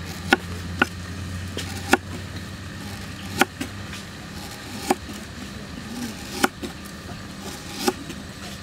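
Kitchen knife slicing garlic and lemongrass on a round wooden chopping block. Each cut ends in a sharp knock of the blade on the wood, about seven in all, spaced a second or more apart.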